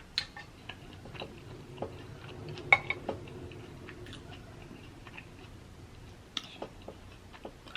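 Close-up mouth sounds of a person chewing food: small wet clicks and smacks, with one sharper click about three seconds in.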